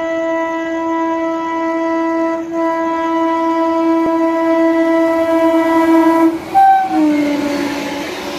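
An approaching locomotive's horn sounds one long, steady blast for about six seconds. A brief higher note follows, then the horn's pitch drops as the locomotive passes, and the coaches rush past with the noise of wheels on rail.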